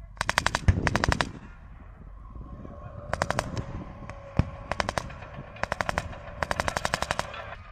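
Belt-fed machine gun firing about six short bursts of rapid shots, with one single shot between them. A steady engine drone runs underneath from about two seconds in.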